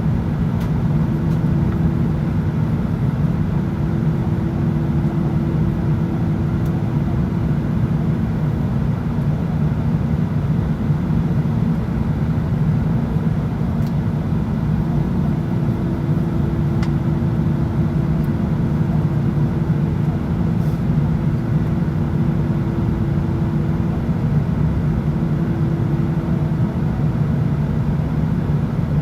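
Steady cabin noise inside an Airbus A319 while it taxis before takeoff: the engines run at low power under an even low rumble and a steady hum, with the level neither rising nor falling.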